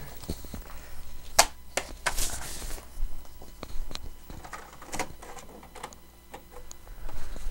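Paper being handled and loaded into an inkjet printer: scattered sharp clicks and knocks, the loudest about a second and a half in, with a brief rustle of paper around two seconds in.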